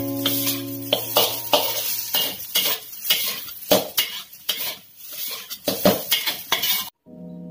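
Metal spatula scraping and clanking against a stainless steel wok in quick repeated strokes as fried rice is stir-fried. It stops abruptly near the end.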